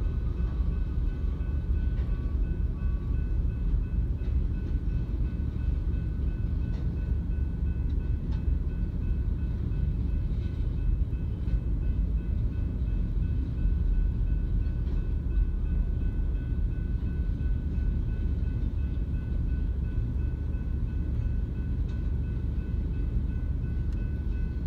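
Slow freight train of tank cars and covered hoppers rolling through a grade crossing: a steady low rumble of wheels on rail, with a thin steady high tone over it.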